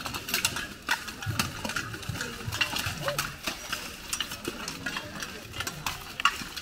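Irregular clatter of many sharp knocks and clanks as polearms and swords strike one another and plate armour in a close melee, with voices among them.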